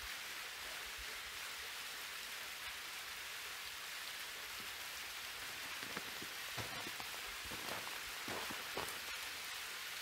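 Thin desert waterfall falling down a rock face and splashing into a shallow pool: a steady, even hiss of falling water, with a few brief louder taps between about six and nine seconds in.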